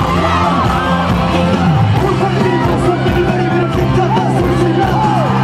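Loud pop music over a concert sound system, with fans screaming and singing along close to the microphone.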